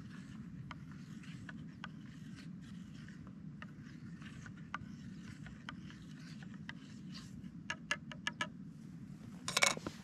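Plastic spork stirring and scraping food in a small camping pot, a steady run of light scrapes. Near the end come about six quick taps, then a brief louder clatter as the spork is set down in a mug.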